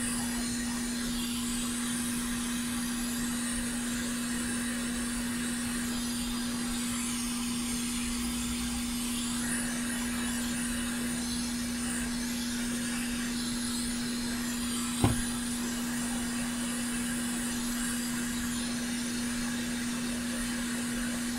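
Hot air rework station blowing steadily on a circuit board to desolder a connector: an even rush of air over a constant low hum. A single short tap about 15 seconds in.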